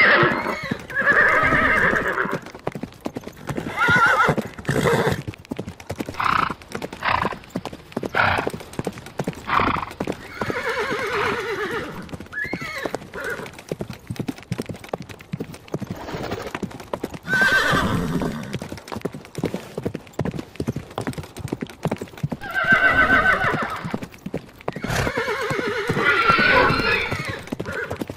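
Horses neighing several times, each a wavering call, with hooves clip-clopping between the calls.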